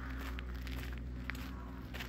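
Footsteps of someone walking at an easy pace, a step roughly every second, over a steady low hum.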